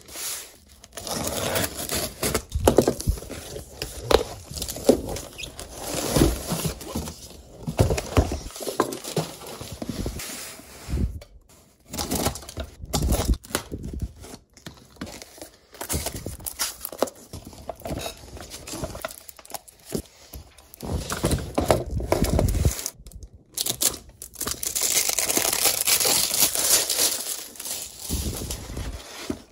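Cardboard shipping box being opened with a utility knife: blade slicing packing tape and cardboard, tape tearing and cardboard crinkling, with irregular knocks of the box on a wooden table. Near the end comes a longer steady scraping rustle.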